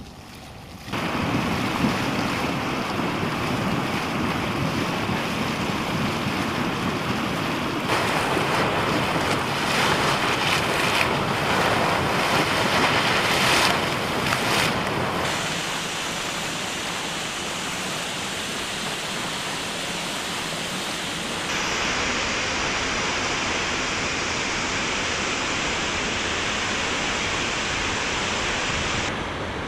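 Waterfall: a loud, steady rush of falling water that starts about a second in and shifts abruptly in tone several times as one fall gives way to another.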